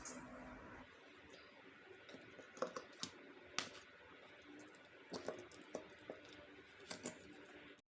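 A few light, sharp clicks and taps, like utensils or dishes being handled, over faint room tone; the sound cuts off abruptly near the end.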